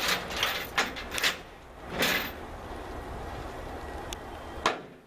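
A handful of sharp metallic clanks and knocks, with a short scraping slide about two seconds in, from the steel flatbed trailer's gear being worked by hand at the gooseneck.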